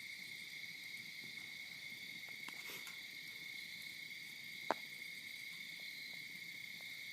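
A steady, unbroken high-pitched drone of calling insects, with one sharp click about two-thirds of the way through.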